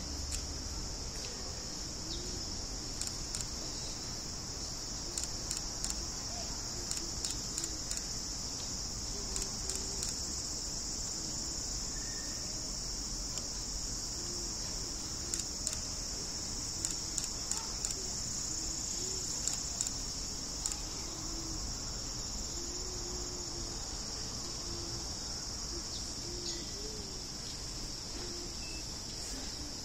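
Steady chorus of summer cicadas, a continuous high buzzing drone.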